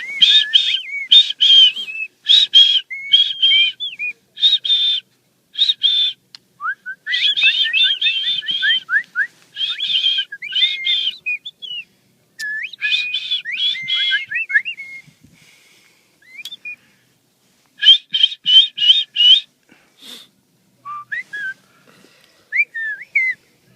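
Small wild birds calling: fast runs of short, high notes mixed with rising whistled notes, in bursts with short pauses, thinning out toward the end.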